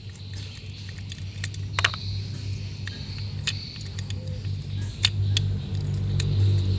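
Scattered light clicks and taps of small metal parts over a steady low hum that grows louder toward the end.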